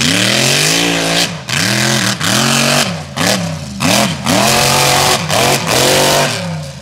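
Mega truck's engine revving hard, its pitch climbing and falling again several times in quick succession as the throttle is worked and let off around the course.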